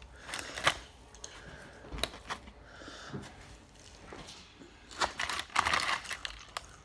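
Close-up eating sounds: scattered mouth clicks and chewing of fried chicken tenders and fries, with a burst of crinkling from the paper liner about five seconds in as fingers dig into the container.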